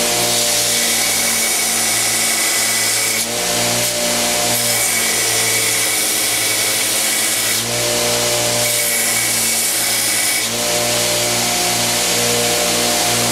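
Homemade 2x72 belt grinder running steadily, its motor humming under the hiss of the abrasive belt grinding a knife handle held against it. The grinding noise shifts every few seconds.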